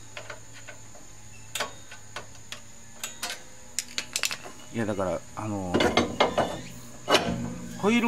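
Scattered metal clicks from a Honda Life JB5's rear drum brake as its adjuster is worked with a tool. In the second half come clinks and scrapes as the brake drum is picked up and slid back over the hub.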